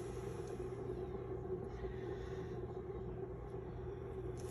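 Steady mechanical hum of a motorized paint spinner turning a freshly poured coaster.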